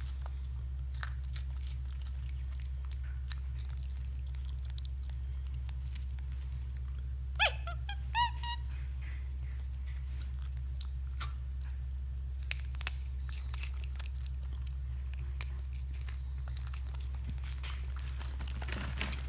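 Black-capped capuchin monkey chewing freeze-dried fruit crisps, with faint scattered crunches. Two short, high, rising calls come about seven to eight seconds in. A steady low hum runs underneath.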